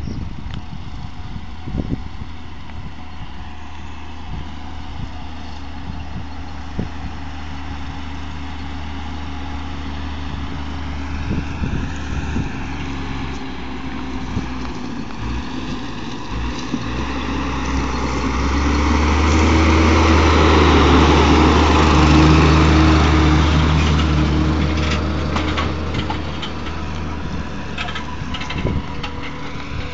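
Diesel engine of a Fendt tractor pulling a loaded silage trailer, running steadily under load; it grows louder as the tractor passes close by, loudest a little past the middle, then fades.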